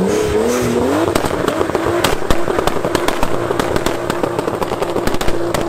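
Nissan 240SX S14 doing a burnout: the engine is held at high revs, its pitch wavering at first and then holding steady, with rapid crackling pops from the exhaust over the spinning rear tyres.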